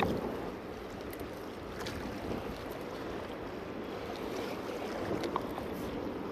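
Steady wind buffeting the microphone, with water washing against a rock breakwall.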